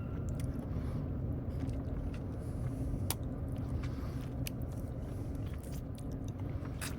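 Mouth sounds of someone chewing cake, a few soft clicks at irregular moments, over a steady low background rumble.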